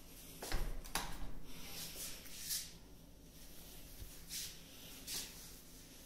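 Miele Professional tumble dryer door pushed shut with a low thump about half a second in, then a sharp click. Several short, soft brushing sounds follow.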